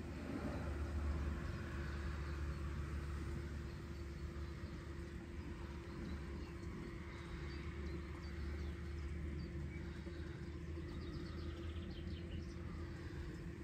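A steady low hum with a steady droning tone above it, and a few short, high bird chirps near the end.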